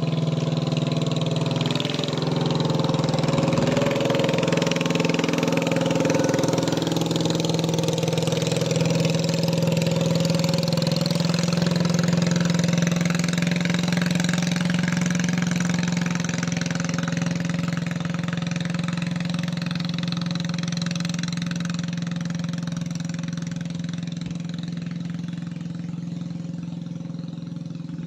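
An engine running steadily with a low drone, slowly fading over the last ten seconds or so.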